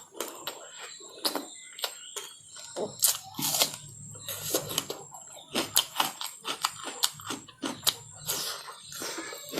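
Close-miked eating sounds: chewing and mouth smacks of a person eating fatty pork, a run of many short, irregular clicks and smacks.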